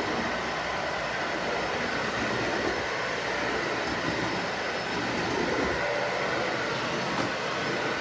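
Dyson Ball Animal 2 upright vacuum cleaner running steadily as it is pushed over a hardwood floor, a constant whir with a faint high whine.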